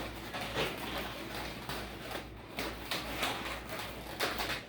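Twisting balloons being handled: irregular short rubs and clicks of latex.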